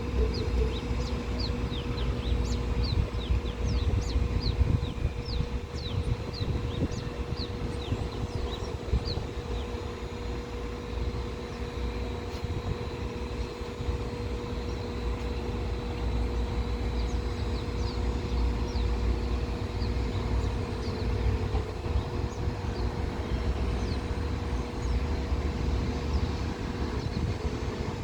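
Jet airliner engines running with a steady low rumble and a constant hum. Birds chirp with many short, quick calls during the first third.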